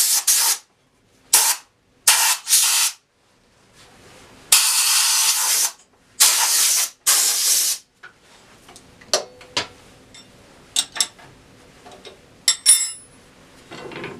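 Compressed-air blowgun giving five short blasts of hissing air, clearing wood shavings out of the coring cut in a walnut bowl blank. After that, scattered light clicks and knocks as the coring tool and its support arm are handled.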